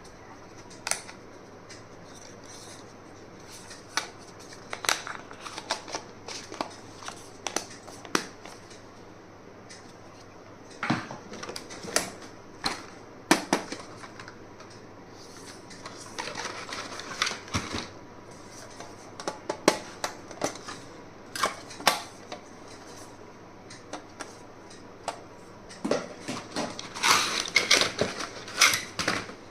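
Stationery and packaging handled at close range: scattered sharp clicks and taps with light rustling, coming thicker near the end.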